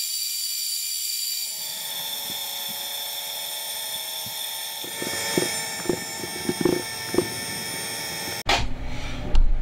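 Metal lathe turning a ductile cast iron bar held in its chuck: a steady whine of the spindle and gearing, with scattered short ticks from the cut between about five and seven and a half seconds. It stops abruptly about eight and a half seconds in, giving way to a lower rumble.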